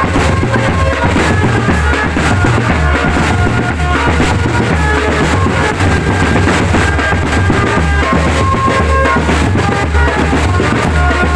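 Marching drum band playing: a steady, dense beat of bass drums and snare drums under a melody of held notes.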